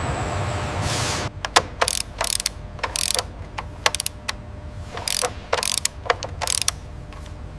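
Mechanical work on a car assembly line: a steady hiss with a low rumble for about a second, then a run of irregular sharp clicks and short ratchet-like snaps, as of parts being fastened.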